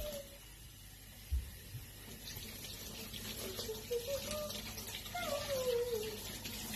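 Kitchen tap running steadily into a stainless-steel sink as hands are rinsed under the stream. In the second half a child's voice hums a wavering, sliding tune.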